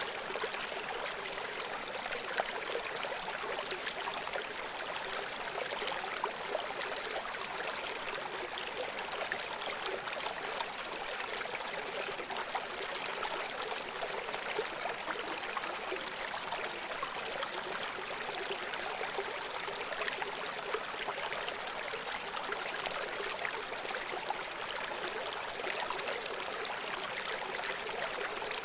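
Running stream: water flowing and splashing steadily over rocks, a continuous hiss with small splashes scattered through it.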